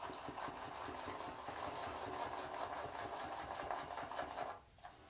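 Boar-bristle shaving brush (Semogue 830 Excelsior) whipped fast around a hand-held shaving bowl, building shaving cream into a lather: a steady, rapid swishing that stops abruptly near the end.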